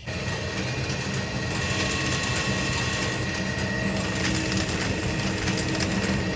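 Repaired shredding machine running, a steady mechanical noise with a constant hum under a dense, fast rattle of moving parts.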